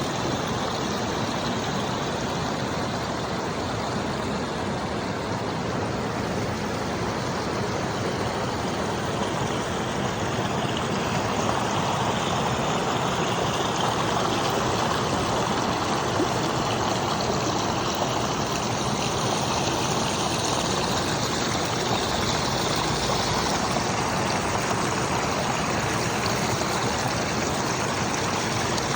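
River in flood flowing and babbling: a steady rush of water, a little louder from about ten seconds in.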